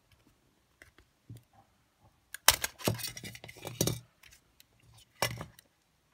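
Handling clicks and rattles of a Sony EX999 Walkman cassette player being taken apart by hand: its metal case and circuit board clicking and knocking as the shell comes off. The clicks come in a dense cluster from about two and a half to four seconds in, with one more short burst near the end.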